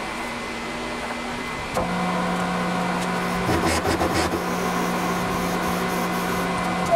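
Machine spindle motor running with a steady hum that gets louder and steadier about two seconds in, then a short burst of rough scraping chatter as the cutter feeds into a small steel block, followed by steady running and a sharp click at the very end.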